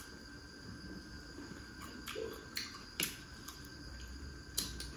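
Quiet eating sounds from chewing roasted chicken wings: scattered short mouth clicks and smacks, the sharpest about three seconds in and two close together near the end. A faint steady high-pitched whine runs underneath.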